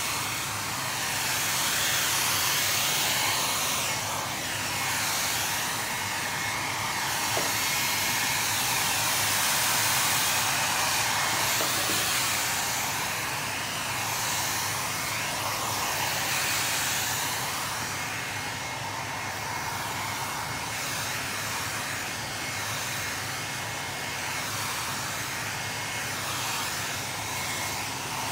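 Hand-held hairdryer blowing steadily, its rush of air swelling and easing as it is swept back and forth over the seat, with a faint high whine. It is drying a freshly sprayed coat of leather lacquer between coats.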